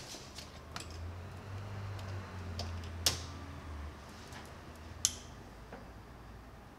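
A few sharp clicks and small taps from a lamp's cord and plug being handled and plugged in, the two loudest about two seconds apart, with a low hum in the first half.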